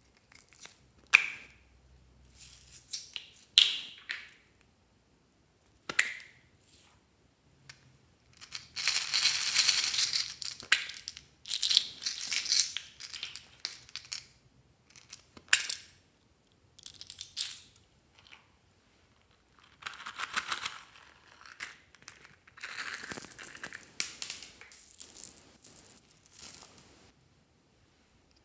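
Small plastic containers being handled and opened by hand over a glass dish: a few sharp plastic clicks of lids, then several stretches of scratchy rattling and crinkling as the containers and their contents, such as foam beads, are handled.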